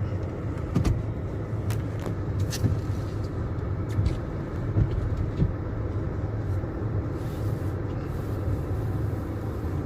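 Car cabin noise while driving: a steady low engine and road rumble, with scattered clicks and knocks.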